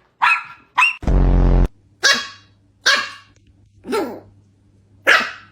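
A small puppy barking and yipping back in a string of short calls, about one a second, most sliding down in pitch. About a second in comes one longer, louder, harsher bark.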